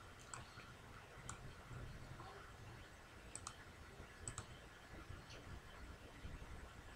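Faint, scattered clicks of a computer mouse, a few of them coming in quick pairs like double-clicks.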